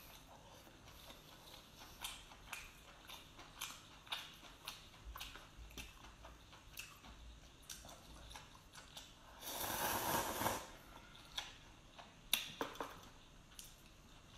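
Close-up eating sounds: a string of short sharp clicks and smacks of chewing and biting at crab shell and meat, with one louder noisy rush lasting about a second about two-thirds of the way through.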